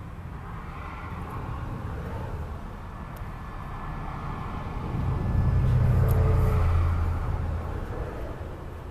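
A motor vehicle passing: a low rumble that swells to its loudest about six seconds in, then fades away.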